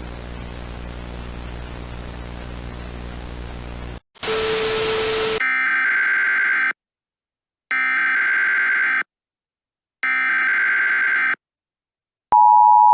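Simulated Emergency Alert System broadcast: about four seconds of static hiss over a low hum, then a short louder burst of static with a tone. Then come three short bursts of EAS SAME header data tones about a second apart, and near the end the steady two-tone EAS attention signal begins.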